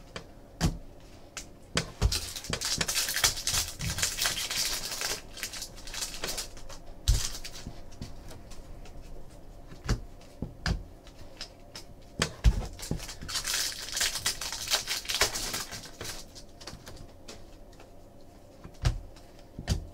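Hockey trading cards being flicked through and shuffled by hand: two stretches of rapid dry rustling and clicking, about two seconds in and again around thirteen seconds, with scattered taps of cards set down on the table.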